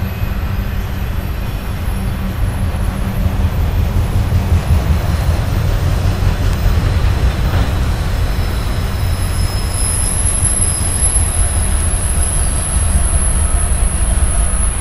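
Freight train of autorack cars rolling past: a loud, steady low rumble of steel wheels on rail. A thin, high-pitched wheel squeal comes in about two-thirds of the way through.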